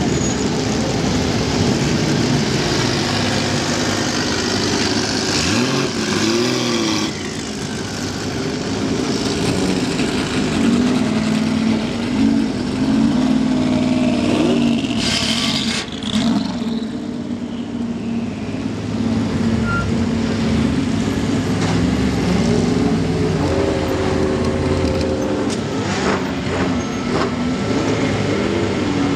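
Race car engines (a Porsche 935 and GT3 race cars) running at low speed as the cars drive slowly past one after another, with throttle blips that make the pitch rise and fall.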